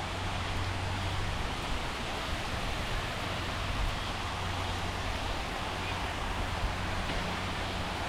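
Steady rain falling, an even hiss with a low hum underneath.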